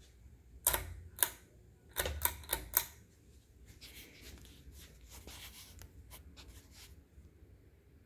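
Pull chain and speed switch of a Hunter Silent Breeze ceiling fan clicking as the chain is pulled: six sharp clicks in the first three seconds, then a softer noisy stretch with a couple of light clicks as the fan spins up.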